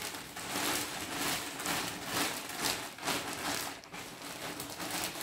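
Clear plastic garment bag crinkling and rustling on and off as it is handled, with a woollen top inside.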